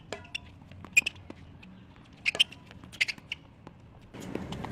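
Tennis rally on a hard court: sharp ball strikes and bounces, the loudest about a second in, mixed with short squeaks of sneakers on the court surface.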